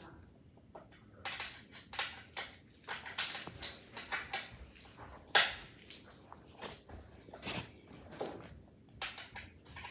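Irregular clicks, knocks and rustles from handling table parts and hardware during assembly, with one sharper, louder knock about five and a half seconds in.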